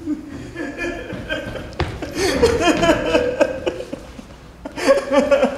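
A man's voice sobbing and crying out without words, in short, broken, distressed pulses that come in several spells.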